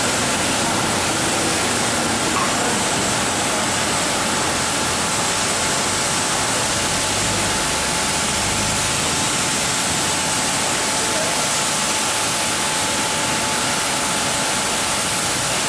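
Steady rushing noise of water and equipment at a car wash, with a faint steady whine running through it.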